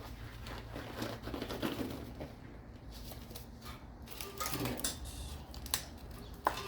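Light clicking and rustling of parts being handled during engine work, with one sharp click near the end, over a steady low hum.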